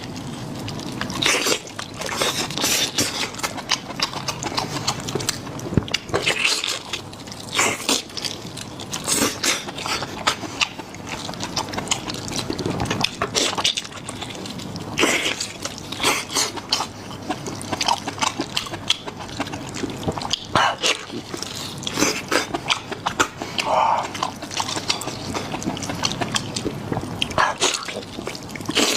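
Close-up wet eating sounds: irregular smacking, chewing and slurping of a person eating with their mouth near the microphone.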